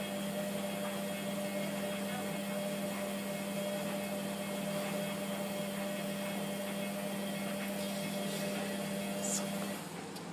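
Hotpoint Aquarius WMF720P washing machine running with a steady hum over a rushing noise, on a heavily sudsy wash. The hum cuts off suddenly about a second before the end.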